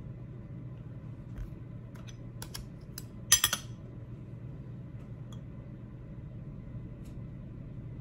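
A metal fork clinks sharply against a ceramic plate a little over three seconds in, with a brief ringing, after a few faint taps of cutlery. A steady low hum runs underneath.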